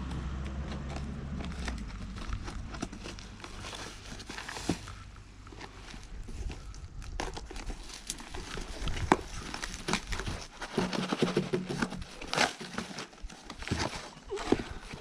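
Tool packaging being handled and pulled open: irregular crinkling and crackling with sharp clicks, busier in the second half.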